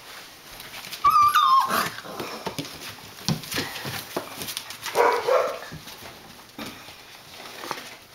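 Briard puppies at play: one gives a high, wavering yelp that drops in pitch about a second in, and another lets out a shorter, rougher cry about five seconds in. Light scuffling and clicks of paws on newspaper and tile run between the cries.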